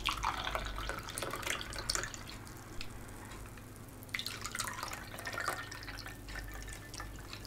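Shaken espresso martini pouring from a metal cocktail shaker into a martini glass, trickling and dripping.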